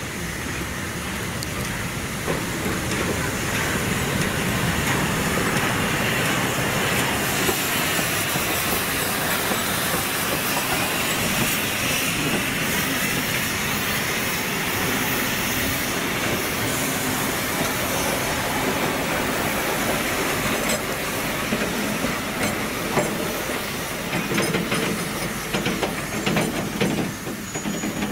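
VR Class Tk3 'Pikku-Jumbo' steam locomotive passing close by at low speed with its train, steam hissing, growing louder as it approaches. In the last several seconds the wooden coaches' wheels click over the rail joints as they roll past.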